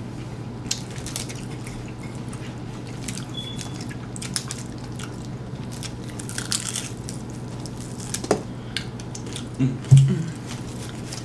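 Close-up eating of tacos: wet lip-smacking and chewing clicks scattered throughout, with a crunchier burst about two-thirds of the way through, over a steady low hum. A short low voice sound near the end is the loudest moment.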